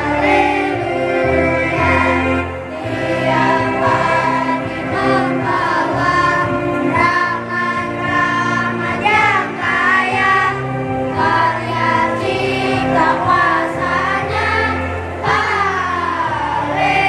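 Children's choir singing, many young voices together in a continuous song.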